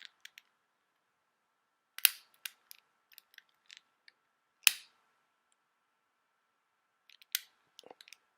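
Repeated sharp clicks from someone trying several times to light a chalice flame, with the loudest clicks a couple of seconds apart among smaller ticks.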